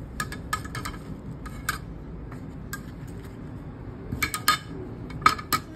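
Serving utensils clinking against a ceramic plate as food is dished up: a scatter of short, sharp clinks, several in the first couple of seconds and a louder cluster near the end.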